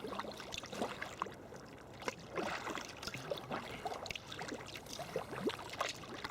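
Water splashing and gurgling around a sea kayak in small, irregular splashes and bubbly trickles.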